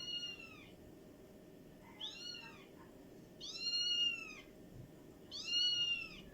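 Cat meowing four times, each meow a high call that rises then falls in pitch and lasts under a second, with the third and fourth the loudest.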